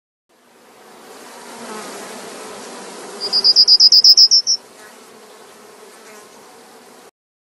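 Insect chirping: a loud, rapid run of high pulses, about eight a second for just over a second, in the middle of a fainter steady hum and hiss. The background fades in at the start and cuts off suddenly near the end.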